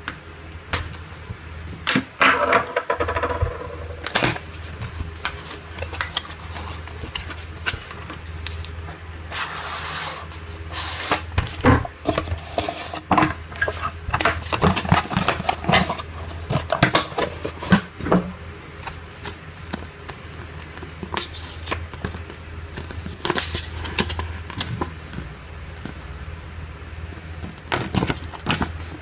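Packaging being handled by hand: irregular crinkling, scraping and clicks, over a steady low hum.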